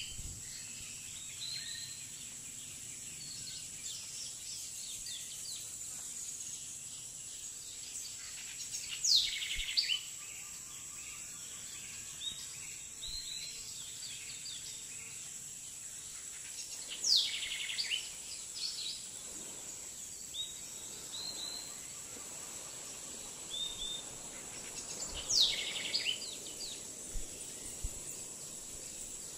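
Tropical island field recording: a steady high-pitched insect buzz under scattered bird chirps, with a loud falling bird call three times, about eight seconds apart.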